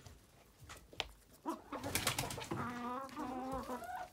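Animal calls: a run of low, wavering, pitched cries that starts about one and a half seconds in and goes on to the end.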